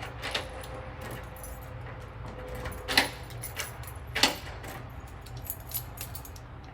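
Keys jingling on a ring as they are put into and turned in a freshly rekeyed Kwikset deadbolt cylinder to test that they work. There are a few sharp metallic clicks, the loudest about three and four seconds in.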